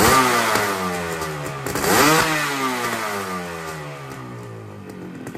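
Yamaha RD350's air-cooled two-stroke parallel-twin engine revved twice, about two seconds apart. Each time the revs fall slowly back.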